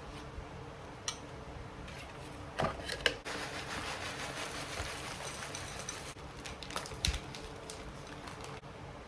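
Handling noises in a small room: a few sharp clicks and knocks, with a stretch of rustling for about three seconds in the middle.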